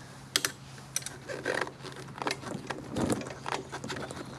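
Irregular metallic clicks and clinks of hand tools working the bolts on a scooter's variator cover, a few sharp ticks among softer handling noise.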